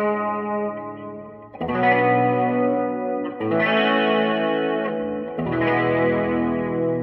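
Electric guitar played through an amplifier: chords struck and left to ring out, a new chord about every two seconds.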